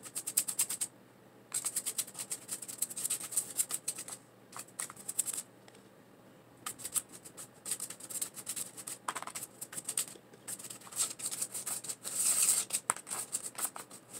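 Plastic spoon stirring and scraping bath bomb mixture in a paper bowl: quick, gritty scratching strokes in bursts, with a few short pauses.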